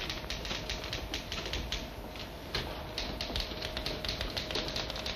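Typewriter keys clacking in quick, irregular strokes.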